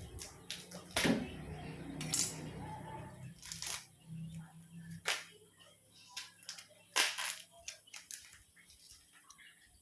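Opening a parcel by hand: five or so sharp cracks and knocks from the packaging being cut and pulled apart, the loudest about a second in and about seven seconds in.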